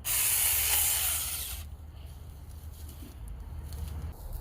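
Battery-powered Saker mini electric chainsaw running in one short burst of about a second and a half as it cuts vines, then stopping.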